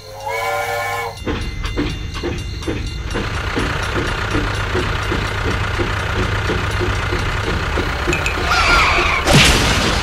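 Steam train whistle blowing for about a second, then the steady rhythmic chugging of a toy steam locomotive running along its track. A screech and a sharp crash come near the end.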